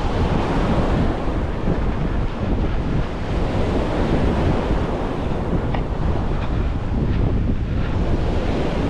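Wind buffeting the microphone with a steady low rumble over the sound of surf breaking on the shore.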